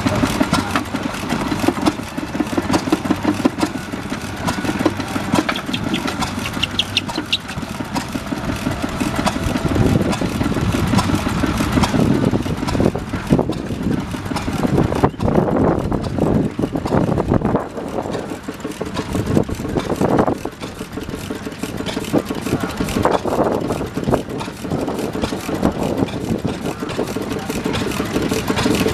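Vintage stationary engines running, their exhaust beating in a regular rhythm.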